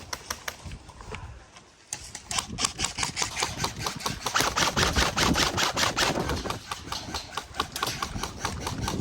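Airsoft gun and magazine handling: a rapid, even run of sharp mechanical clicks, several a second, starting about two seconds in and thinning out near the end, over low rustling.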